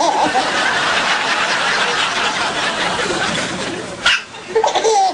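Group laughter, a dense spread of chuckles and snickers, then a single sharp hiccup just after four seconds in, followed by a voice laughing.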